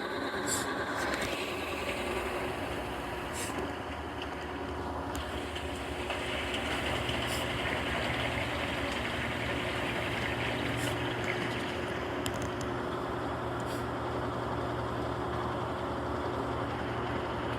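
Whirlpool 22 kg washing machine in its spin cycle: a steady motor-and-drum whirr with a low hum that strengthens slightly partway through, and a few faint ticks.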